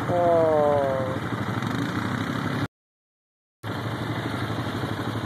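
ATV engines running. Over the first second one engine drops in pitch, the loudest part, and a brief rise in pitch follows. The sound cuts out completely for about a second just past the middle, then comes back as a steady engine drone.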